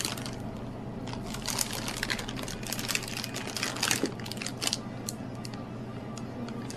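Crinkling and crackling: a quick, irregular run of small clicks from about a second in until nearly five seconds, over a steady low hum.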